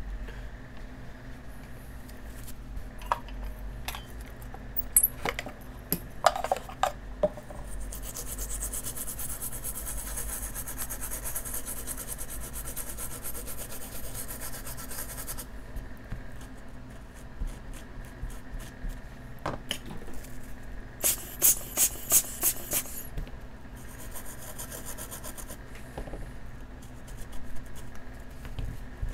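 A freshly soldered phone circuit board being scrubbed clean with a brush: rubbing strokes with scattered small clicks. About eight seconds in comes a stretch of steady fast brushing, and a little past twenty seconds a quick run of about seven sharp strokes.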